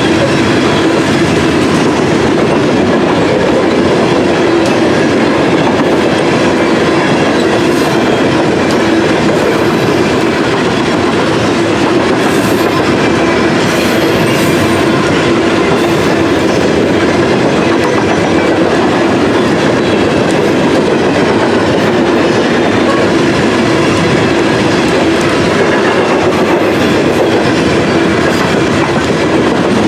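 Loaded coal hopper cars of a Norfolk Southern freight train rolling past, their steel wheels running on the rails in a loud, steady rumble.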